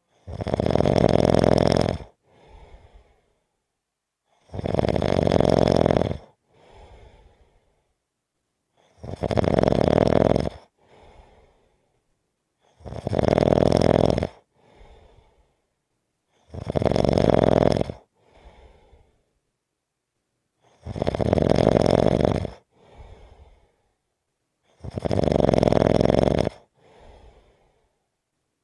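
Loud snoring in a slow, even rhythm: seven long snores of just under two seconds each, about every four seconds, each followed by a fainter, shorter breath.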